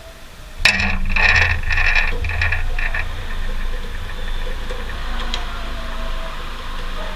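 A motor-driven machine starts abruptly about a second in and runs in several short surges, then keeps running steadily.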